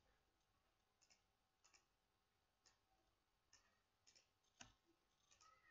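Faint computer mouse clicks, about seven at uneven intervals, the loudest a little past four and a half seconds in.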